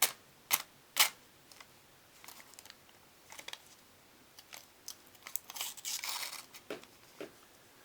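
A sharp knife blade slicing through a sheet of paper: three crisp snips close together near the start, then paper rustling and crinkling with scattered small ticks.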